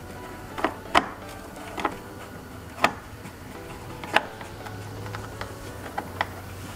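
A short Phillips screwdriver working out a screw that holds the grille in the plastic bumper cover, giving a handful of sharp, irregular clicks about a second apart. Faint background music runs underneath.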